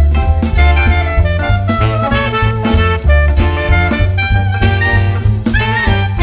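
Background jazz music with saxophone and brass over a steady bass and drum beat.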